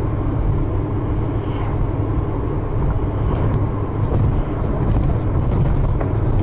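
Steady low road and engine noise of a car driving along at speed, heard from inside the cabin by a dashcam.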